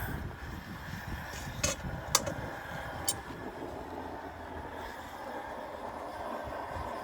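Hot steel knife blade being quenched in oil, with three sharp metal clinks about one and a half to three seconds in, over a low steady rumble; the quench itself makes little noise.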